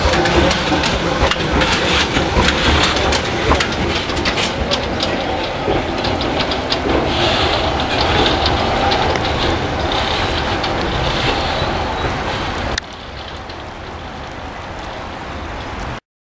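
Krupp-built 1958 fireless steam locomotive moving along the track: a steady hiss of steam and running noise with irregular clicks and knocks. About three-quarters of the way through, the sound drops suddenly to a quieter, steady noise.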